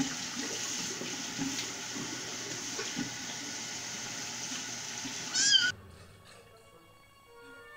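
Tap water running into a sink with a few small splashes, and a kitten meows once, loudly, about five seconds in.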